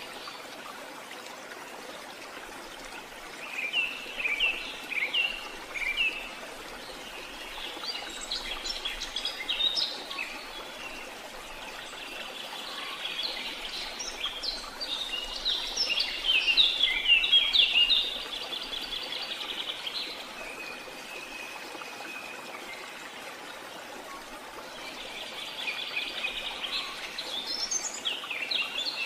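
Songbirds singing in repeated phrases of quick high chirps, with pauses between phrases, over a steady background hiss.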